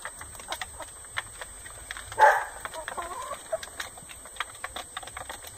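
A flock of half-grown chicks pecking, with many quick irregular taps, soft clucking, and one short loud call about two seconds in.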